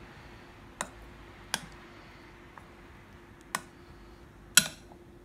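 Four sharp clicks of a hard-boiled egg and fingers knocking against a glass mixing bowl as the egg is rolled in thick batter by hand, the last click the loudest. A faint steady hum runs underneath.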